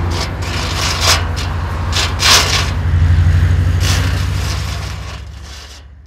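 Car engines and tyre noise of street traffic, with cars whooshing by about one, two and four seconds in. The sound fades out near the end.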